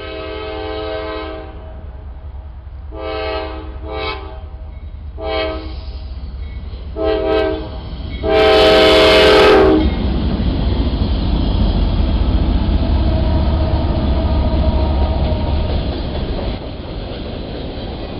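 Locomotive air horn sounding a series of blasts, short and long, the last one about a second and a half long and the loudest. Then the train runs past with a steady heavy rumble and the clickety-clack of wheels over the rail joints.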